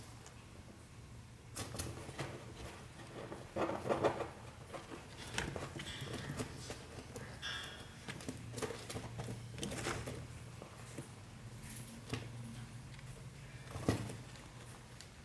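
Kakariki chicks shifting about in their nest of wood-shaving bedding: scattered soft rustles and taps, with a couple of brief high squeaks in the middle, over a low steady hum.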